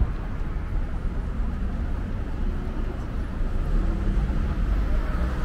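City street traffic: a steady rumble of road vehicles that grows a little louder in the second half.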